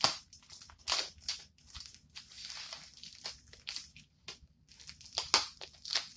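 Packing wrap crinkling and rustling as it is pulled and unwrapped by hand from a tightly wrapped item, with sharp crackles at the start, about a second in, and twice near the end.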